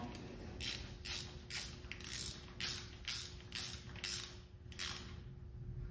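Hand ratchet wrench worked in short, quick strokes, about eleven rasping ratchet strokes at a little over two a second, snugging bolts down by hand.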